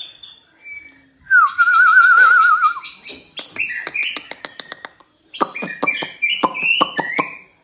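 White-rumped shama singing. A warbling, wavering trill is followed by clear whistled phrases mixed with runs of sharp clicking notes.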